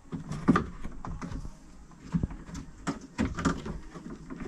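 Irregular clicks and knocks of plastic and metal parts being worked down into a car's door shell, the assembly catching as it goes in, with a cluster of louder knocks in the second half.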